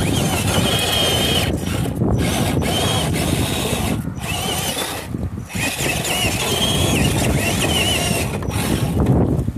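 Electric motor and gears of an RC scale crawler whining as it climbs, the pitch wavering with the throttle and cutting out briefly a few times.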